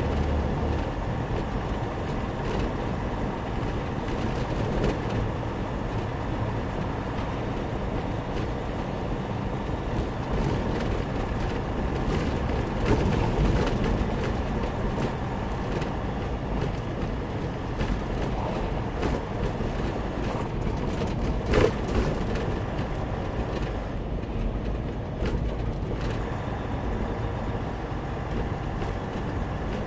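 Steady engine and road noise inside a truck's cab while driving at town speed. A brief sharp click is heard about two-thirds of the way through.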